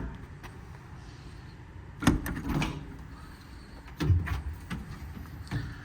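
Compartment doors and latches on an IMT Dominator service truck body being worked, giving three sharp clunks about two seconds apart, the first two with a short metallic ring.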